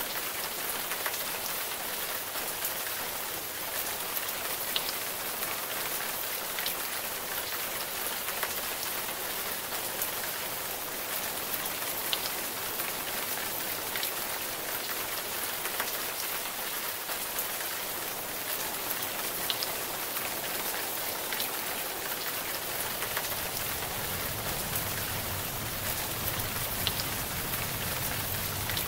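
Steady rain hiss with scattered drop ticks. A low rumble comes in near the end.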